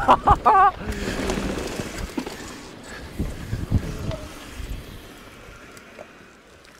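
Mountain bike running down a trail: wind rush on the helmet-camera microphone and a few knocks from the bike over the ground, growing steadily quieter. It opens with a rider's short wavering whoop.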